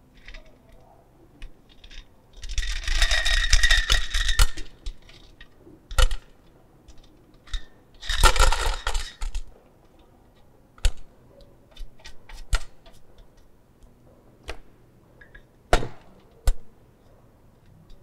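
Aggregate particles tipped and brushed out of a stainless-steel test sieve into a metal pan on a scale, rattling in two longer stretches, about two seconds in and again about eight seconds in. Scattered clinks and knocks of the metal sieves and pan between them.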